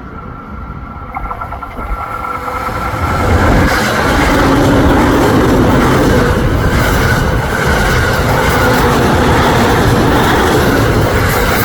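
JR East E231 and E233 series electric trains, coupled together, running past: the sound builds over the first few seconds and becomes a loud, steady rush of wheels on rail with clickety-clack over the joints from about three and a half seconds in.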